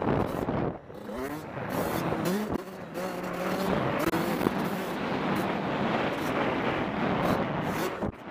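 Suzuki RM85L's 85cc two-stroke single-cylinder engine being ridden hard, its pitch rising and falling over and over as the throttle is worked and gears change. It drops off the throttle briefly about a second in and again near the end.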